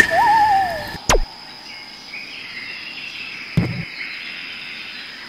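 Edited-in cartoon sound effects: a click, then a wavering whistle that falls away over the first second, a quick downward whistle, and a soft thud about three and a half seconds in.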